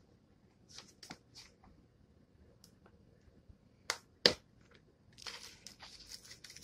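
Taco seasoning being handled and shaken out over a pot of chicken-and-rice filling: a few light clicks, two sharp clicks about four seconds in, then a quick, rapid rattle of the seasoning being shaken from its container.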